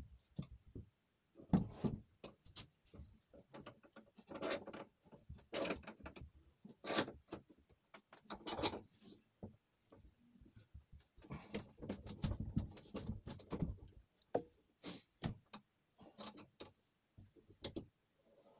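Cast-iron bench vise being handled and adjusted on its clamp base: irregular metal clunks, clicks and scraping, with a cluster of knocks about eleven to fourteen seconds in.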